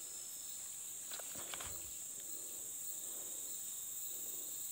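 Steady high-pitched chorus of forest insects, with a few faint footsteps on dry leaf litter about a second in.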